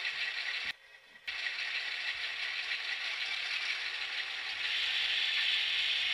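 Model railroad freight cars and locomotive rolling along the track: a steady mechanical rattle of small wheels on rail and the model's gear drive. It cuts out briefly about a second in and grows a little louder about two-thirds of the way through.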